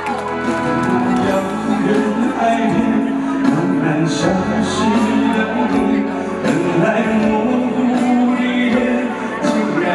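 Live music: a man singing into a microphone over electronic keyboard accompaniment, amplified through the hall's PA.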